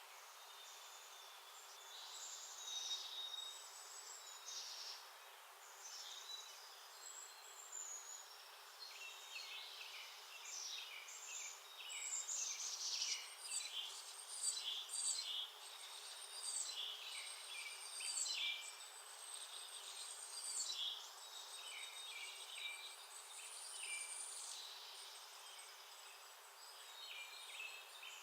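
Small backyard songbirds chirping and calling again and again, many short calls and trills that crowd together around the middle, over a steady faint hiss of outdoor background noise.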